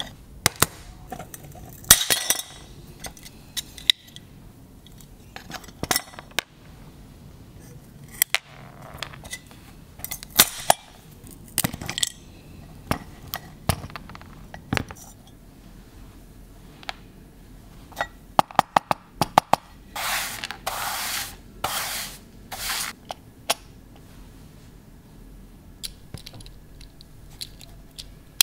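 Small metal and brass parts of a vintage chrome perpetual flip calendar clicking and clinking as they are handled and taken apart, with diagonal cutters snipping and crunching through the old wooden dials. A quick run of clicks and then a few longer rasping sounds come about two-thirds of the way through.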